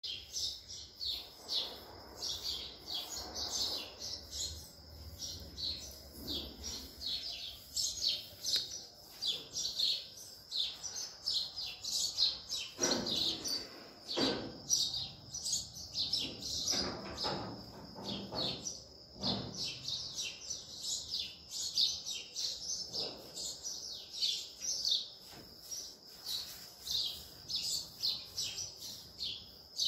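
Small birds chirping in quick, continual short notes, with a handful of brief, deeper noises in the middle.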